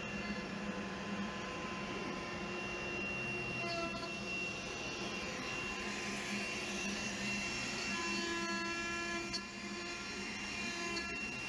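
Shapeoko Pro XL CNC router running a job: several steady whining tones that change pitch about 4 seconds and 8 seconds in as the machine moves, over a constant hum and hiss.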